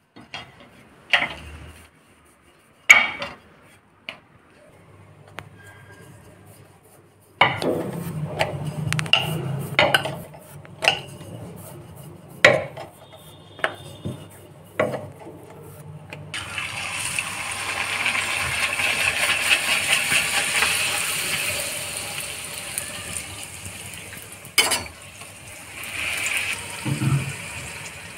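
Sharp knocks and taps of a wooden rolling pin on a metal rolling board as puri dough is rolled out. About halfway through, hot oil starts sizzling as a masala puri deep-fries in a steel kadai, swelling and then fading, with a shorter sizzle near the end.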